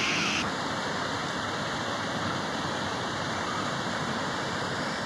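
Stream water spilling over a small weir into a stone-walled channel: a steady rushing splash.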